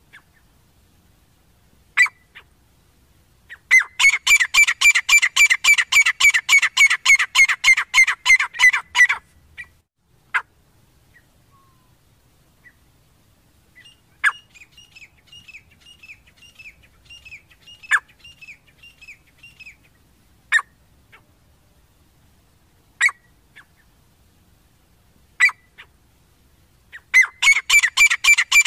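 Grey francolins calling. Single sharp call notes come every few seconds, broken up by loud runs of rapidly repeated calls, about five a second. One run lasts about five seconds, starting about four seconds in, another starts near the end, and a fainter run comes in the middle.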